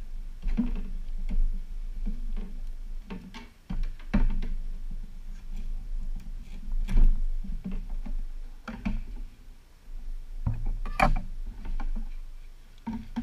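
Irregular light knocks, taps and rustles of a hand-worked armor piece and Velcro being handled on a work surface, a few louder knocks among them, over a steady low hum.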